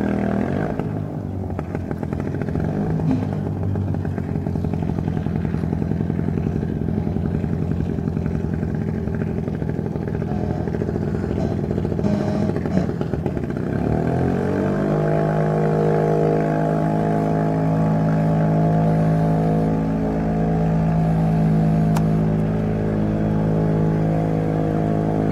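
Pengor Penguin amphibious vehicle's engine running as it motors across a lake. The sound is rough and rumbling at first, then about halfway through rises in pitch and settles into a steady drone.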